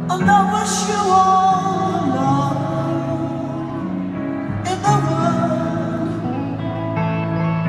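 Music with a singing voice over sustained accompaniment, in two sung phrases, the second beginning about halfway through.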